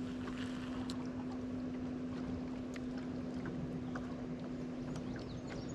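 Electric trolling motor on a bass boat running with a steady electric hum, with scattered small ticks and clicks over it.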